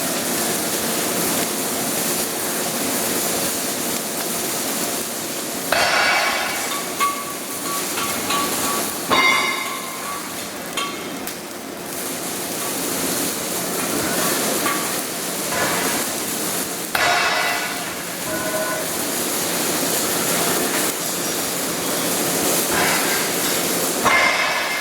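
Steady hissing crackle of an electric welding arc on carbon steel pipe, with a few short ringing metallic clanks scattered through it.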